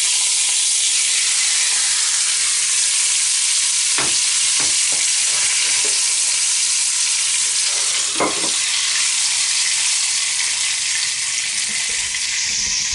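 Very hot fat, just used to sear a pork roast, sizzling steadily, hot enough that it is smoking. Light knocks of cookware come about 4 and 8 seconds in.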